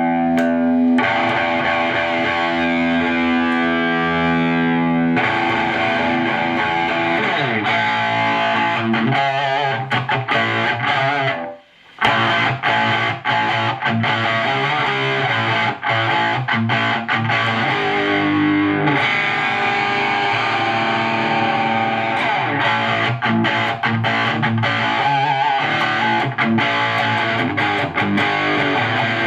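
Electric guitar played through a Tube Screamer TS-9-style overdrive pedal into a tube amp's high-gain distortion channel, with the pedal's drive all the way down, its output raised and the amp's drive all the way up. It starts with held distorted chords, then goes on with busier riffing, and cuts out briefly about 12 seconds in.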